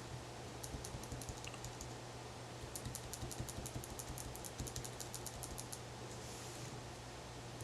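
Quick runs of light clicking taps, about seven a second, a short run early and a longer one in the middle, over a faint steady low hum.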